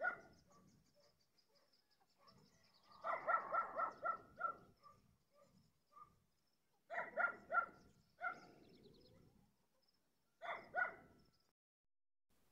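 Dog barking in bouts: a couple of barks at the start, a quick run of about six a few seconds in, three more around the middle, and a last pair near the end.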